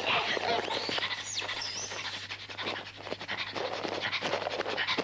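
A dog panting, with a few high squeaky glides about a second and a half in.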